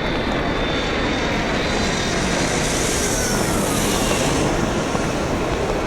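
Airport ambience: a steady din, with an aircraft's jet whine swelling about two seconds in, falling slightly in pitch, and fading a couple of seconds later.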